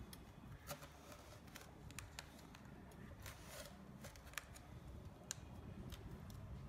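Faint, irregular scrapes and light clicks of a kitchen knife cutting through set, crumbly besan sweet in a steel bowl.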